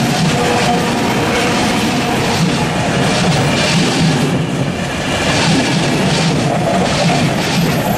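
Train of passenger coaches passing close by, with a steady rolling rumble and repeated clacks of the wheels over rail joints.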